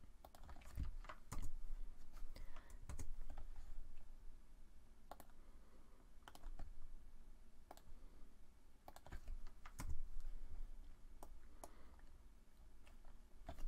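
Computer mouse and keyboard clicks, sparse and irregular, as spline points are placed and commands entered in drawing software.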